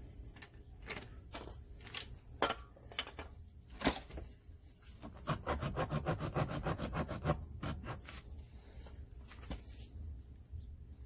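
Hand tools from a tire plug repair kit clicking and knocking at a puncture in a tire, with a quick, even run of clicks, about seven a second, for about two seconds midway. A low rumble runs underneath.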